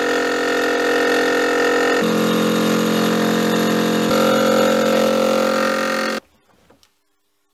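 Milling machine running with its face-milling cutter over a steel bar in the vise: a steady machine sound of several tones that shifts in pitch about two and four seconds in, then cuts off suddenly about six seconds in, followed by a few faint clicks.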